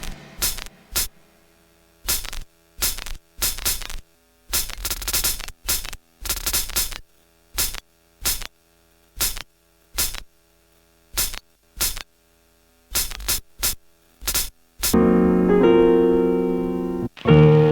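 Roland SP-404SX sampler playing vinyl sample chops: short single hits fired one at a time at an uneven pace with silent gaps between them. About 15 seconds in, a sustained keyboard chord sample starts; it cuts off briefly near the end and restarts.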